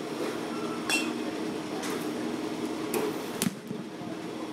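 Batting-cage impacts: a bat striking pitched balls with sharp cracks. The hit about a second in rings briefly with a ping, and further knocks come near two and three seconds, the last one loudest, over a steady low hum.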